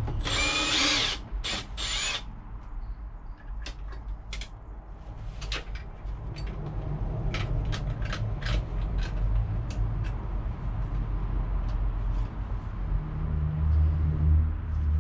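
Power drill run in short bursts to drive screws, its motor whine gliding up and down in the first two seconds, then knocks and clicks of handling and fixing over a steady low rumble.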